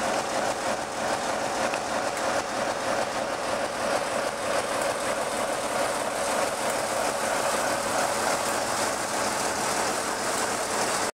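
Brush Type 4 (Class 47) diesel locomotive D1566 idling steadily at a standstill, its Sulzer twin-bank 12-cylinder engine running with an even hum.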